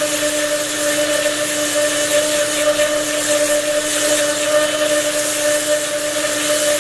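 Countertop blender motor running at a steady speed, a constant whine over a hiss, as it beats powdered skim milk, ice water and strawberry drink mix into a thick mousse.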